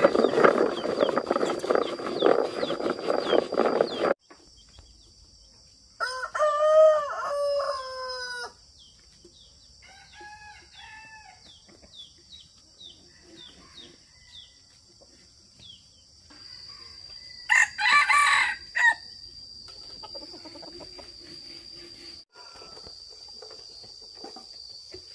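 A loud rushing noise for about four seconds stops abruptly, and a steady high insect drone takes over. A rooster crows about six seconds in, followed by a few softer fowl calls and a second loud call near the eighteen-second mark.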